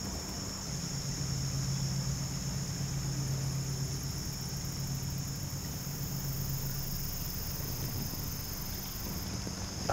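Insects trilling steadily in the woods, with a steady low hum underneath that starts just after the beginning and stops shortly before the end.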